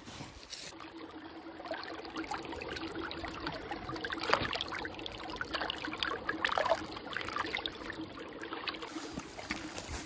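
Shallow rocky stream trickling and babbling, with a few louder splashes about four and six and a half seconds in.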